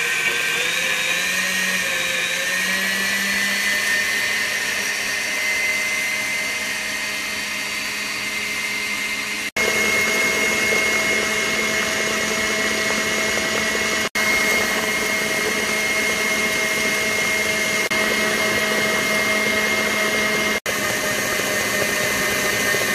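Electric stand mixer running at top speed, its whisk beating a sponge-cake batter until it is thick and pale. A steady motor whine that rises slightly in pitch over the first couple of seconds as the motor comes up to speed, with three momentary gaps.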